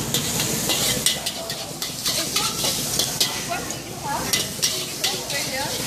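Char kway teow stir-frying in a large wok: steady sizzling, with a metal spatula scraping and clanking against the wok again and again.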